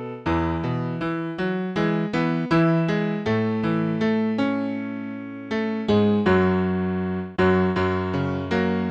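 Keyboard piano playing a slow song in chords, each chord struck and left to fade, about two to three a second, with one long held chord about halfway through.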